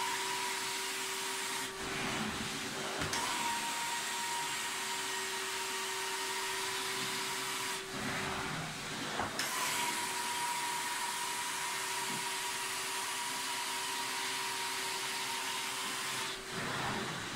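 Carpet extractor wand sucking water out of carpet: a steady vacuum hiss with a high whistle, extracting carpet after it has been pre-treated. The whistle breaks off briefly three times, about two, eight and sixteen seconds in.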